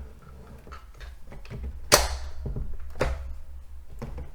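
Plastic mop module of a robot vacuum being pushed onto its connectors and snapping into place, with two sharp clicks about a second apart (the first the louder), over low handling rumble and small ticks. The click means the module is seated snugly.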